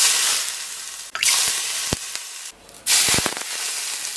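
Hot oil poured over chili powder, scallion and garlic on a bowl of noodles, sizzling loudly. It comes in three surges, each sharp at first and then dying down, as the oil is splashed on in turns.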